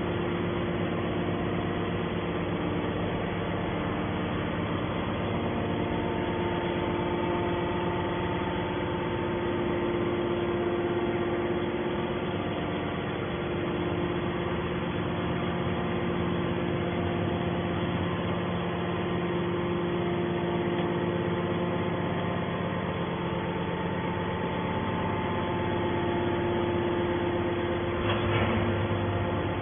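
Hydraulic scrap-metal baler's power unit running with a steady mechanical hum of several constant tones.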